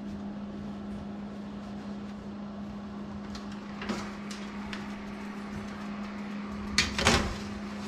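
A pan of wings going back into a kitchen oven: a few light metal clicks, then two sharp knocks near the end as the oven door is shut, over a steady low hum.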